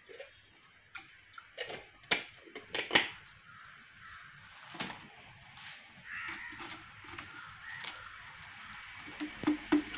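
Plastic jars, lids and a tin being handled and set down on a plastic sheet. It comes as a series of scattered sharp knocks and clicks, loudest about two to three seconds in.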